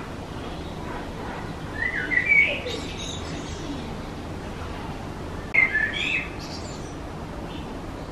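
A songbird singing two short phrases, about two seconds in and again near six seconds, over steady outdoor background noise.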